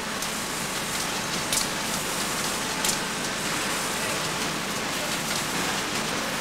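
Steady din of a bakery's bread-wrapping line and conveyor running, an even hiss-like machinery noise with a few sharp clacks.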